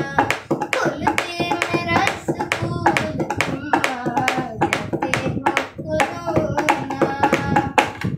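A boy singing a Hindi song unaccompanied, keeping time with a sharp, steady beat struck by hand; the song ends near the end.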